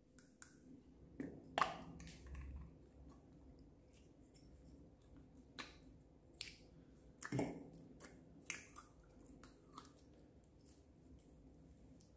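Slime being handled by hand, giving off scattered soft sticky clicks and pops as fingers press into and pull at it. The two loudest pops come about a second and a half in and again about seven seconds in.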